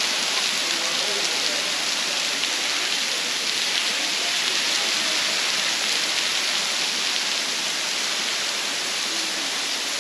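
Waterfall plunging into its pool: a steady, unbroken rush of falling water.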